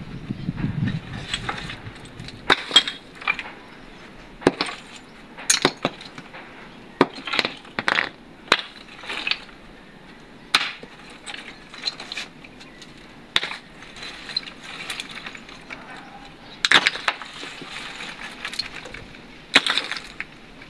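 Chunks of broken concrete and ceramic tile clinking and clattering as they are pulled by hand from a broken-open tomb niche. It comes in irregular sharp clinks and knocks, a dozen or more, spread through the whole stretch.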